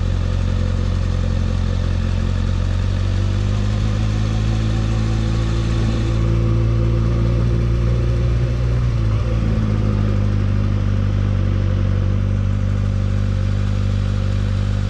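Motorcycle engine running at low revs in a low gear just after a downshift. The pitch rises a little about four seconds in and eases back about nine seconds in.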